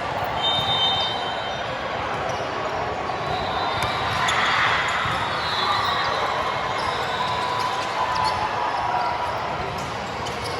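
Busy indoor sports hall: a ball bouncing and striking, short high sneaker squeaks on the court floor, and background chatter from the crowd.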